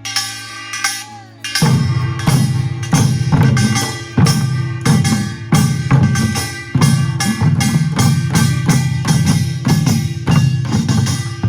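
Korean pungmul percussion band playing: small gongs clanging and drums beating in a fast, dense, driving rhythm. The full band comes in strongly about two seconds in after a quieter opening.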